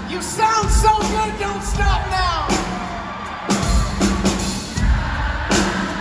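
Pop-rock band playing live through a concert sound system: a sung line that slides down and breaks off about two and a half seconds in, then loud drum and full-band hits.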